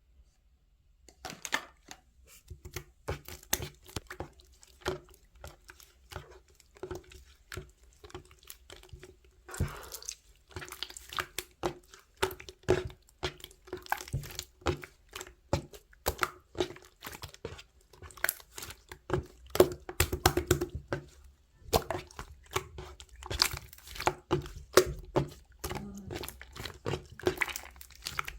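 A busy run of short taps, clicks and crinkling, as of objects being handled and set down, with a faint steady hum underneath.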